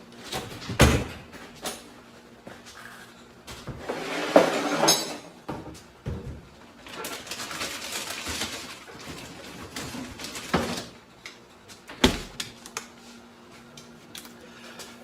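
Scattered knocks, clunks and rustling handling noise in a small room, with the sharpest knocks about a second in, near four and a half seconds, and about twelve seconds in.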